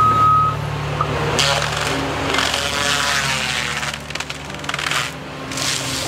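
CAT excavator with a forestry disc mulcher attachment running: a steady diesel engine drone with rushing noise that swells and fades. A steady high beep sounds for about the first half second.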